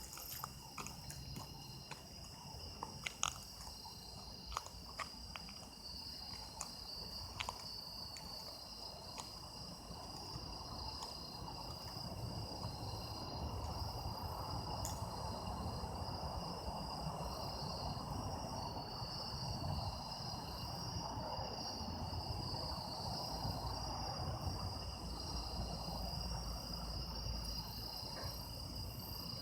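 Autumn insects, crickets among them, chirping steadily in chorus, with several high trills at different pitches. Scattered sharp clicks come in the first several seconds, and a low rumble rises under the chorus from about ten seconds in.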